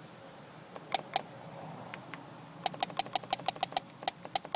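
VW Thing gas heater's fuel pump ticking, run straight off a 12-volt battery. Two clicks about a second in, then a quick steady run of sharp clicks, about five a second, from just under three seconds in.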